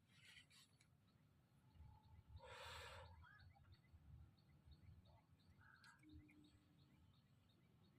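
Near silence: faint outdoor ambience with a run of soft, evenly repeated high chirps and a brief rustle a little before the middle.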